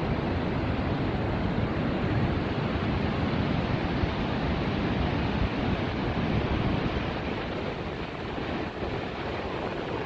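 Steady noise of surf breaking on a sandy beach, mixed with wind buffeting the phone's microphone.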